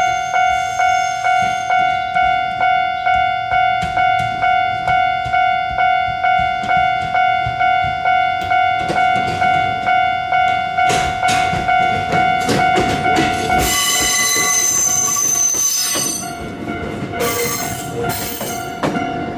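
Japanese level-crossing warning bell ringing about twice a second while an Ichibata Electric Railway train runs past, its wheels clicking over rail joints. The bell stops about three-quarters of the way through, leaving the rumble of the train with high-pitched wheel squeal.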